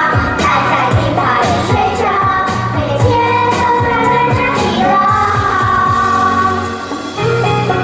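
A Chinese pop song: high voices singing over a backing track with a pulsing bass, holding long notes near the middle.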